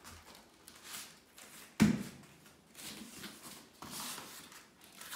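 Soft rustling and tapping of a foam puzzle piece being handled and pressed into its slot in a foam alphabet floor mat, with one sharp thump a little under two seconds in.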